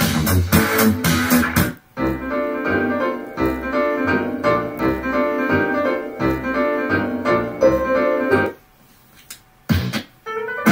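Music with a steady beat, led by keyboard, playing from a proton pack prop's Ninja Tunes sound kit. About two-thirds of the way through it cuts off, then after a second's pause come a couple of short blips, as if skipping to another track.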